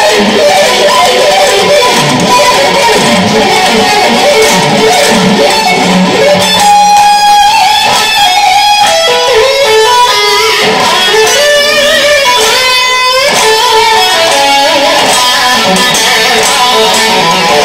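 Electric guitar playing a lead line, with quick runs of notes about seven and thirteen seconds in.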